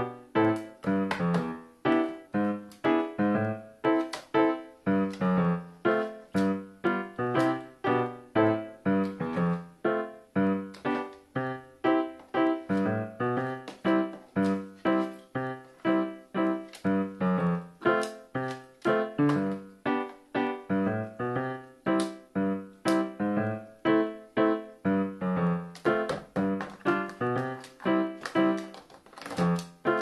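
Background keyboard music: a steady, even run of piano-like notes, about two a second.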